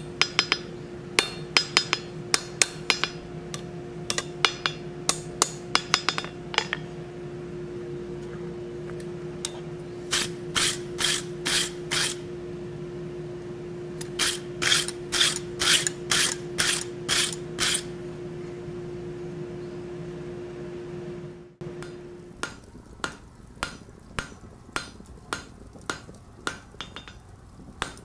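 Hammer blows ringing on a hot steel bar on the anvil, about three a second, over a steady hum. These are followed by two short runs of quick strokes as a wire brush scrubs scale off the bar. After a sudden cut, evenly spaced strikes continue more quietly.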